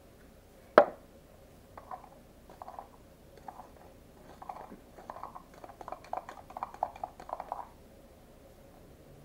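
A sharp knock about a second in, then a spoon stirring and scraping a thick dish-soap-and-salt slime mixture in a small plastic cup, in quick, irregular strokes that stop near the end.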